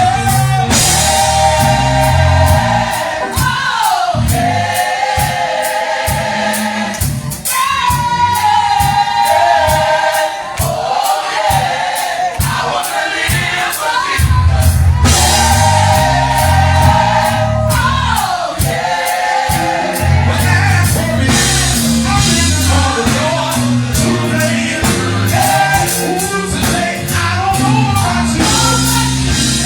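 Gospel choir singing held, sliding chords with a live band: bass and drums. The bass drops out for a few stretches.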